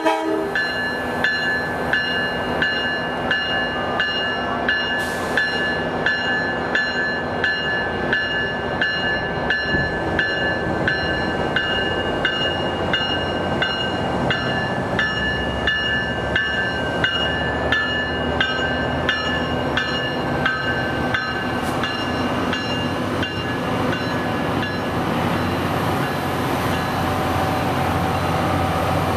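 Railroad grade-crossing bell ringing in a steady, even rhythm of quick strikes, with a train's low rumble under it that grows slightly near the end.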